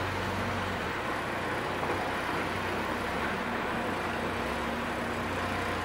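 Farm conveyor and pallet-box filling line running: a steady mechanical noise, with a low hum that drops away about a second in.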